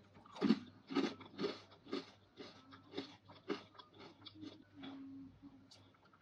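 Close-up crunchy chewing of dried fruit and vegetables, about two loud crunches a second at first, growing softer over the second half.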